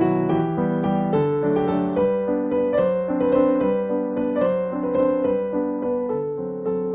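Background piano music: a gentle melody of notes over held chords.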